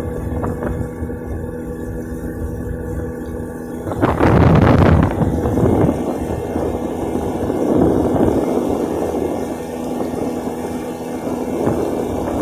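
A small motorboat's engine running steadily, with a sudden loud rush of wind noise on the microphone about four seconds in and uneven wind noise swelling and fading after.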